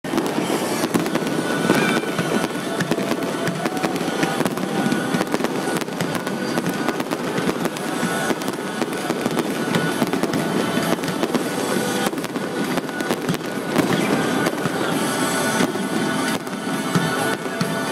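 Aerial fireworks display: shells bursting and crackling one after another without a pause, with music playing alongside.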